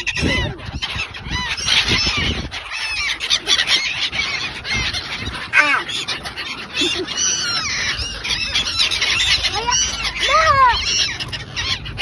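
A flock of gulls calling, many short harsh cries overlapping densely, some dropping in pitch.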